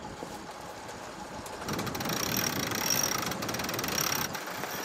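Sailboat winch being cranked with a winch handle, its pawls clicking, from about two seconds in to just past four seconds, over steady wind and water noise.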